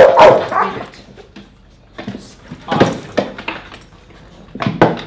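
A dog barking in a few separate bursts, loudest right at the start, with more barks about three seconds in and again near the end.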